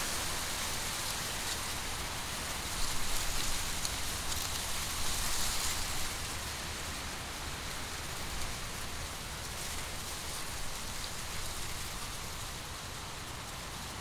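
Wind rustling through the dry, dead leaves of a standing corn field: a steady papery hiss that swells in brief gusts about three and five seconds in.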